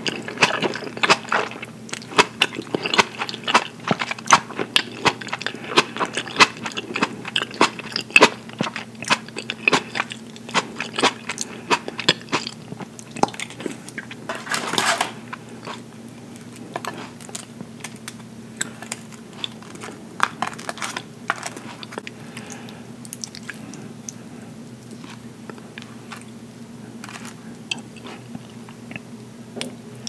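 Close-miked chewing of caprese salad (tomato slices and fresh mozzarella in balsamic dressing): wet, clicky mouth sounds. They come thick and fast for the first dozen seconds, with one louder rushing sound about halfway through, and grow sparser after that. A steady low hum runs underneath.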